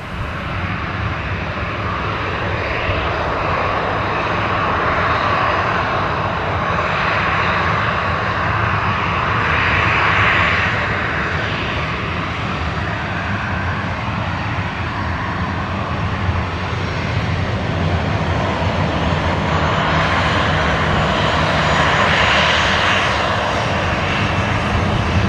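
Boeing 737 airliner's twin jet engines running steadily at taxi power, a low hum under a broad hiss. The hiss swells gently twice as the aircraft passes close by.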